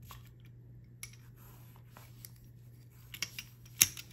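Small pieces of cut art glass clicking and tapping as they are laid out and nudged together on a work surface: scattered light clicks, a few close together a little after three seconds and the loudest one just before the end, over a steady low hum.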